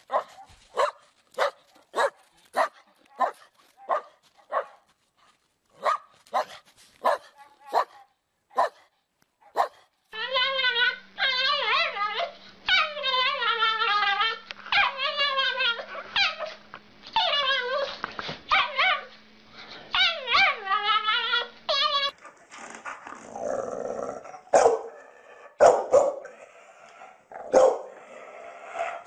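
Dogs barking, one after another: first a dog giving short sharp barks about once or twice a second for some ten seconds, then a small dog making long, wavering howl-like cries, then a stocky short-haired dog barking irregularly near the end.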